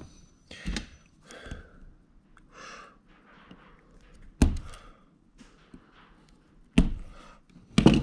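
Electrical cable being handled and stripped with wire strippers at a plastic junction box: four sharp clicks and knocks spread out, the loudest about halfway, with soft rustling of the cable between.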